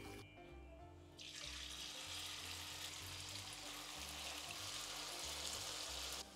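Bakwan (vegetable fritter) batter sizzling as it is spooned into hot oil in a frying pan. The even hiss starts about a second in and cuts off abruptly just before the end.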